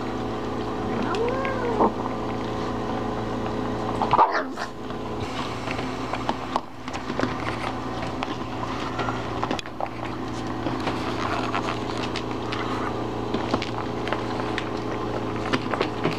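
Domestic cat giving warning calls while it eats, telling the dogs to stay away from its food. There is one call that rises and falls about a second in, and a louder call about four seconds in. A steady hum and scattered small clicks run underneath.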